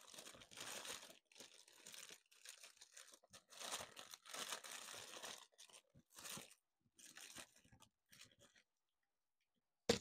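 Foil and plastic toy packets crinkling and rustling in irregular bursts as a hand rummages through a pile of blind bags. Near the end, a single sharp knock as the plastic surprise egg is set down on a hard tabletop.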